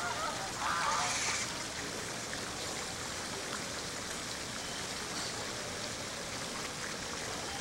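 A steady rushing hiss like flowing water, with a brief louder sound about a second in.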